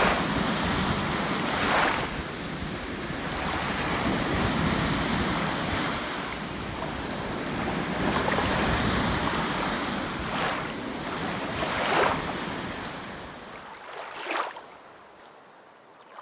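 Waves breaking and washing up a shore, the surf swelling several times, with wind on the microphone. It dies down near the end.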